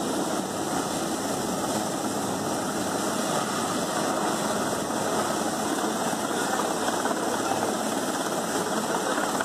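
Navy Sea King helicopter hovering low: a steady, rapid beating of the main rotor over the whine and rush of its turbine engines.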